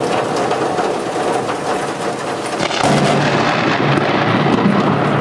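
Heavy rain pouring down, a dense steady hiss with fine crackle; a low steady hum joins about three seconds in.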